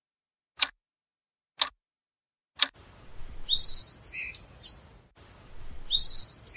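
A clock ticking about once a second, three ticks, then birds chirping and tweeting over a low outdoor hiss from about two and a half seconds in. The same stretch of birdsong starts over a little past five seconds in.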